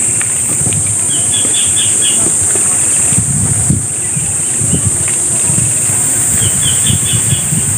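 Insects droning steadily at a high pitch, with a bird giving two short runs of chirps, about a second in and again near the end. Underneath, a low rumble of wind on the microphone from riding a bicycle.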